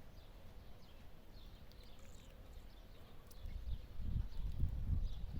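Faint, scattered chirps from small birds over low rumbling noise, which grows louder about four seconds in.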